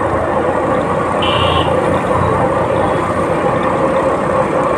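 Motorized two-wheeler riding slowly along a street: a steady engine hum under dense road and wind noise, with a brief high-pitched tone about a second in.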